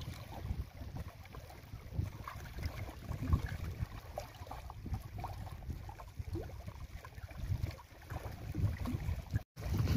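Wind buffeting the microphone in irregular gusts, with small waves lapping at shoreline rocks. The sound drops out briefly near the end.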